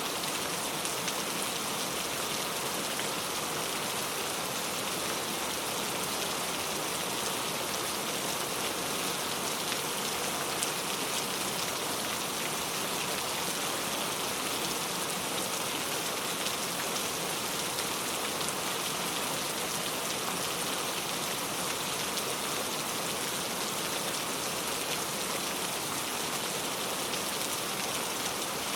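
Heavy rain falling steadily on a leaf-covered road, a dense, even patter of drops.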